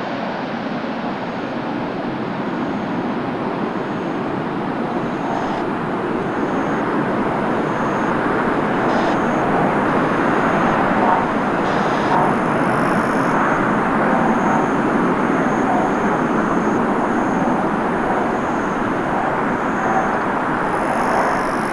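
Jet airliner engines, a steady rushing noise that slowly grows louder.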